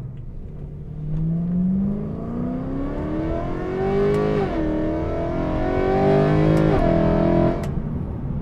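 BMW E93 M3's 4.0-litre V8, with an aftermarket valved exhaust (double X-pipe and resonators) and its valves open, accelerating hard. Its pitch climbs steeply through the gears, with two quick upshifts, and it lifts off near the end. Heard from inside the cabin with the hardtop up.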